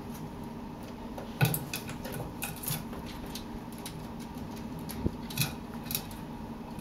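Young black-headed caiques' claws and beaks tapping and scraping on a steel feeding bowl and wire-mesh floor: a few sharp clicks, the loudest about a second and a half in and a small cluster near the end, over a steady low hum.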